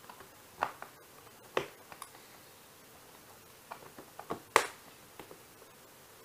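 Cardboard keyboard box being handled and picked at while someone tries to open its tight seal: scattered sharp clicks and taps, the loudest about four and a half seconds in.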